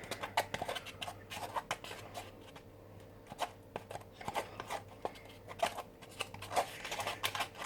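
Irregular small clicks and scrapes of a utensil stirring a runny slime-and-shampoo mixture in a bowl.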